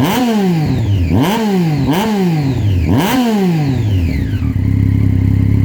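Triumph Street Triple 675 R's inline three-cylinder engine with an HP Corse exhaust, revved in four quick throttle blips. Each rev rises sharply and falls back more slowly. It then settles into a steady idle near the end.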